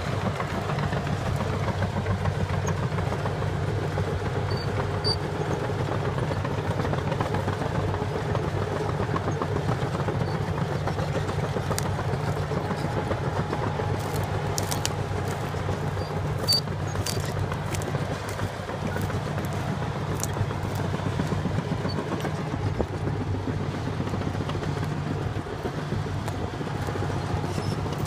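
Heavy diesel engines of a logging truck and a Cat bulldozer running steadily under load as the dozer pushes the truck, with a few sharp clicks about halfway through.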